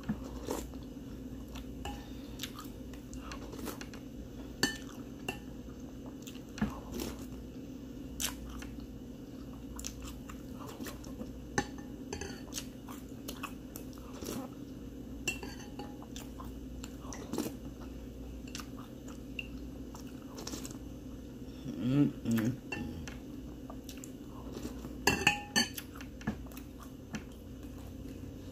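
A metal spoon clinks and scrapes against a cereal bowl every second or so, with chewing of cereal between spoonfuls. A quick run of louder clinks comes near the end.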